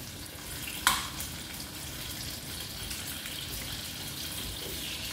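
Potatoes frying in oil in a pot, a steady sizzle, with one sharp knock of the stirring utensil against the pot about a second in.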